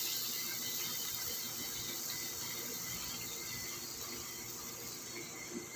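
Batter-coated eggs deep-frying in hot oil in a wok: a steady sizzle that slowly fades.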